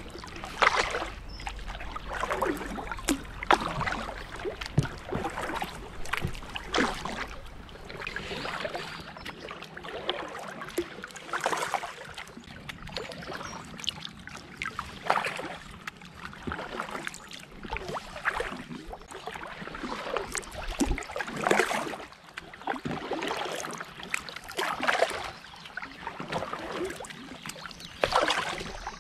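Double-bladed kayak paddle strokes in calm canal water: the blades dip, pull and splash in turn about every second or so, with water dripping off them between strokes.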